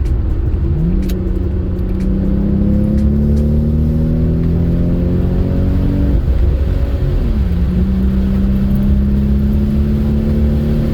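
Toyota 2JZ-GTE turbocharged inline-six pulling under load on the road. The revs climb slowly, fall sharply at a gear change about six seconds in, then climb again. It runs without breaking up or popping, a sign the misfire is cured after new spark plugs.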